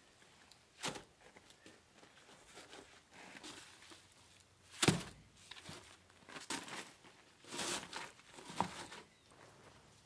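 Footsteps on gravel and the handling of heavy flat stone slabs, with one sharp thud about halfway through as a slab is set down on the stone edging. Near the end a large canvas sheet rustles as it is shaken out.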